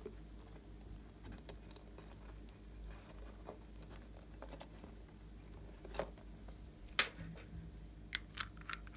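Faint handling sounds of a plastic squishy and a small glass bottle: scattered clicks and taps, the sharpest two about six and seven seconds in, then a quick run of clicks near the end as the bottle is handled and opened.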